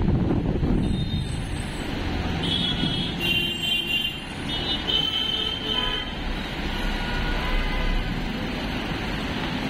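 Busy city road traffic heard from a moving bus, a steady low rumble of engines and tyres. Several short high-pitched tones sound between about two and six seconds in.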